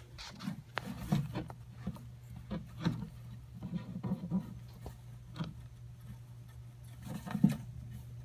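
Savannah monitor shaking and thrashing a mouse in its jaws against the substrate and driftwood: irregular rustles, scrapes and knocks, the loudest a little past seven seconds in.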